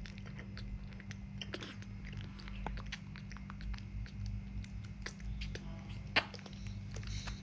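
Baby monkey sucking milk from a feeding bottle: faint, irregular wet clicks and smacks at the nipple, over a steady low hum.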